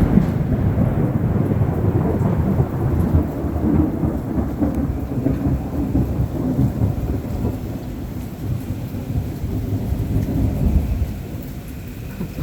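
A long roll of thunder rumbling during a thunderstorm, easing a little near the end, with heavy rain falling.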